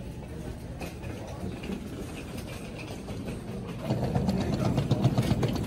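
Airport terminal background noise: a steady low rumble that grows louder about four seconds in, with a dense patter of clicks and knocks.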